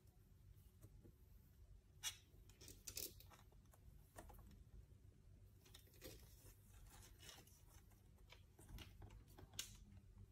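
Near silence: a faint low room hum with a few short, soft scratchy rustles and clicks from tiny kittens being stroked and handled, moving about on a windowsill.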